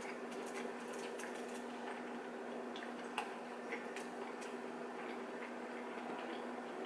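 Two people eating dumplings: soft chewing and mouth sounds with scattered small clicks and taps, the sharpest about three seconds in, over a steady low hum.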